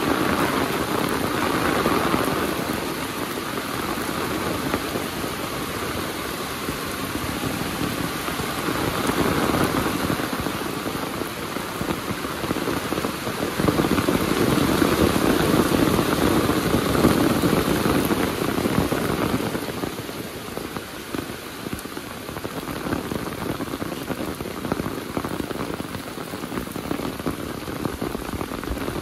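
Heavy rain falling and pattering on surfaces, a dense steady hiss that swells louder in the middle and eases a little about two-thirds of the way through.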